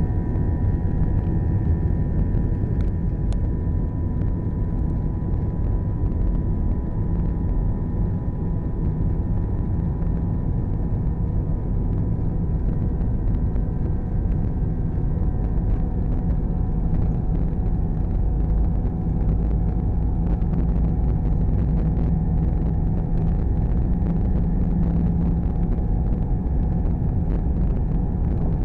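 Airbus A320 jet engines under takeoff power during the takeoff roll, heard from inside the cabin over the wing: a steady deep rumble from the engines and runway, with a few steady whining tones riding over it.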